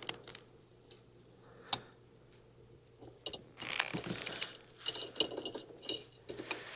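Hand-tool work on wires: one sharp click about two seconds in, then a run of small clicks and scraping as a wire is cut, stripped or crimped into a heat-shrink butt connector.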